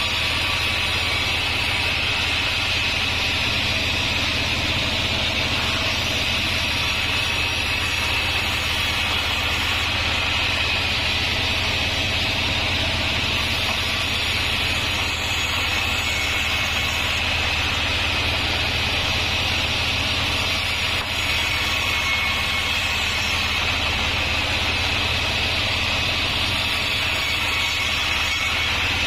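Band sawmill running steadily, a constant low hum with a high steady whine above it.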